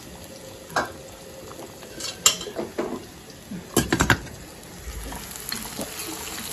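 Kitchen utensils and dishes clinking and knocking. There are a few scattered knocks and a quick cluster about four seconds in, over a faint steady hiss.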